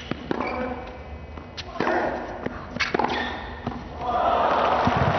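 Tennis rally: a few crisp racket strikes on the ball, a little over a second apart, then crowd applause starts about four seconds in as the point ends.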